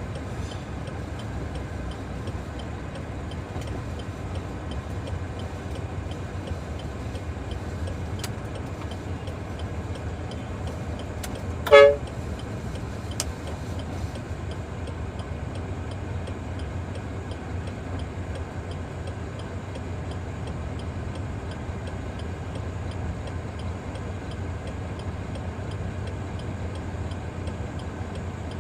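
Heavy diesel engine running steadily at a low, even hum, with one short horn toot about twelve seconds in.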